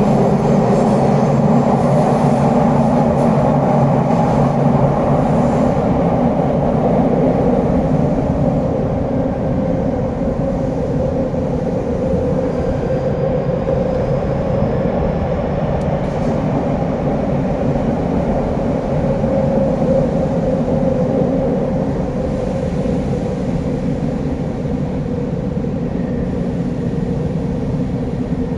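TRTA (Tokyo Metro) 7000 series subway train running at speed, heard from inside the car: a steady rumble of wheels, running gear and its Hitachi traction motors.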